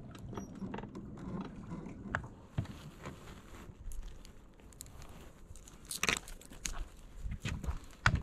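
Irregular small clicks, rattles and rustles as snagged fishing jigs and hooks are worked free of tree branches by hand, with a couple of louder knocks about six and eight seconds in.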